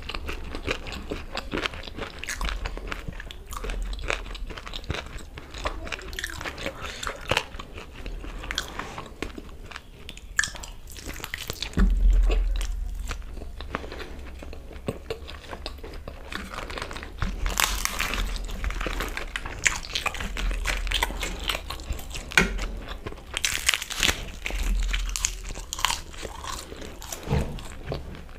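Close-miked eating: wet chewing of chicken curry and rice, with crisp crunching bites of papad in the second half and a loud low thump about twelve seconds in.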